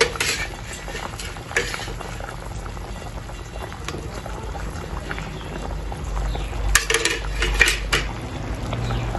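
Fish curry boiling steadily in a metal kadai, with a metal spatula clinking and scraping against the pan as pieces of chital fish are put into the curry. The clinks come a few times, most sharply between about seven and eight seconds in.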